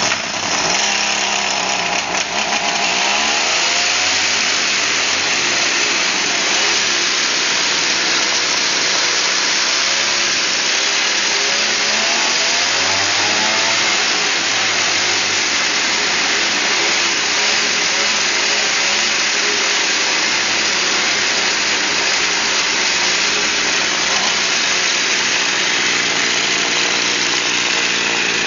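Chainsaw engine powering a homemade scooter, running loud and steady, its pitch rising and falling a couple of times as it is revved.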